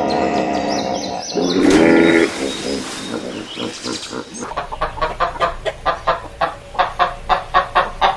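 Chickens calling: a few longer pitched calls, then from about halfway a steady run of short clucks, about three a second.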